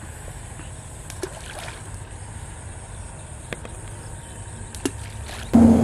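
Low steady rumble with a few small, sharp plops as bait tossed by hand lands in canal water. Near the end a loud, steady motor hum starts suddenly.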